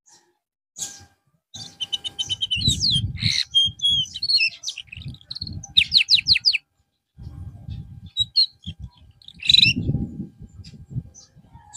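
Canary singing in broken phrases of chirps, quick trills and rapid falling notes, with low muffled rustling between them.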